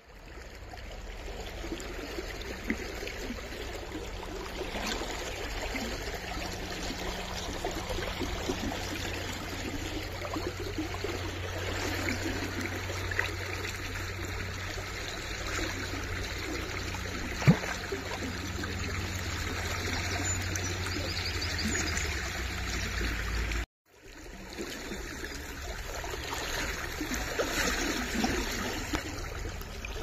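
A small, shallow stream flowing and trickling over stones, a steady wash of water noise. One sharp click comes about two-thirds of the way through.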